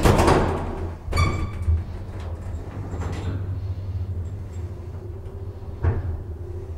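Deve-Schindler hydraulic elevator: the car doors bang shut at the start, and a short beep with a knock comes about a second in. The hydraulic drive then hums steadily as the car travels, with a single thud near the end.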